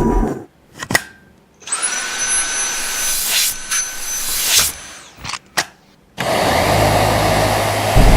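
Cordless handheld vacuum cleaner running in short stretches, its motor whine rising as it starts up, then cutting off, with a few sharp clicks between runs.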